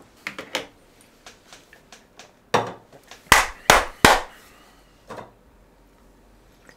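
A run of sharp hand claps: four loud ones in quick succession between about two and a half and four seconds in, with lighter claps or taps before them and one more about five seconds in.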